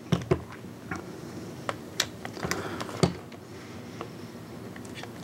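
Steel lineman's pliers clicking against a small metal spade terminal as it is squeezed tighter to grip the battery tab. Several separate sharp clicks and ticks, the loudest just after the start and about three seconds in.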